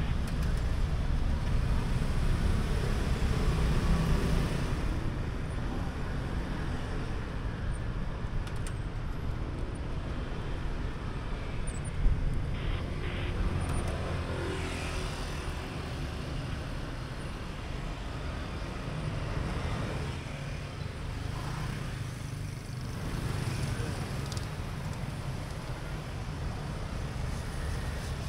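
City street traffic of cars and motorbikes heard from a moving cyclo: a steady low rumble of engines and tyres, with one sharp knock about halfway through.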